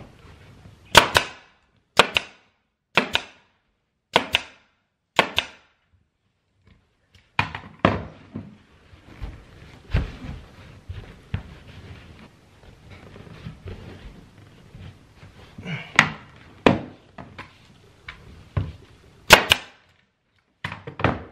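Central Pneumatic 18-gauge air stapler firing staples through carpet into a stair, five sharp shots about a second apart, then a stretch of softer knocks and carpet rustling, then a few more shots near the end.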